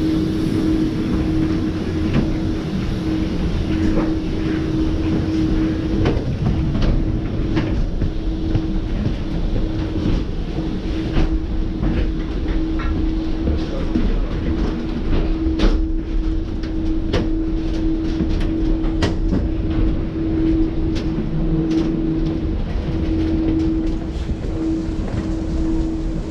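Footsteps and wheeled carry-on suitcases rumbling and clicking over the floor of an airport jet bridge, with scattered sharp clicks. A steady low hum runs underneath.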